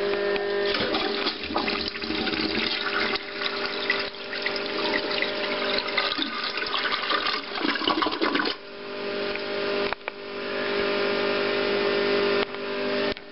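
1997 American Standard Cadet 2 gravity toilet flushing: water rushes and swirls down the bowl, carrying tissue with it. About eight and a half seconds in, the turbulent rush gives way to a steadier hiss.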